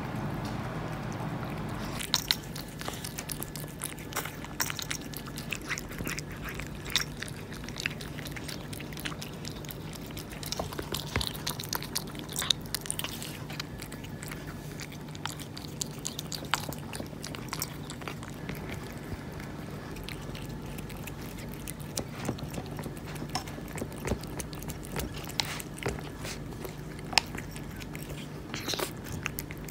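Persian cats eating wet cat food from plastic bowls: irregular wet chewing, smacking and clicking sounds, over a steady low hum.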